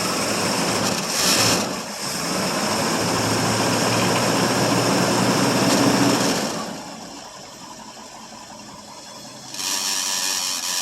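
Ford 390 FE V8 firing and running on a cold start after about three years unused, loud for the first six seconds or so, then dropping to a quieter idle, with another loud rise near the end. The power steering pump is noisy.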